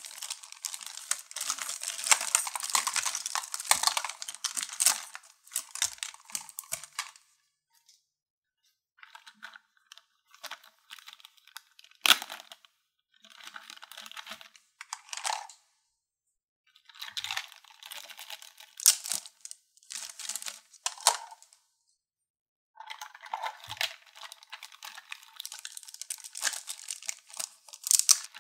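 Plastic packaging of small toys crinkling and tearing as it is unwrapped, in several bursts with short silences between, and a few sharp clicks.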